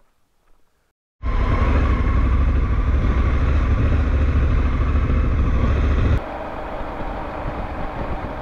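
Honda Africa Twin parallel-twin motorcycle riding along, a steady dense engine-and-road noise with heavy low rumble. It cuts in suddenly about a second in and drops to a quieter level about five seconds later.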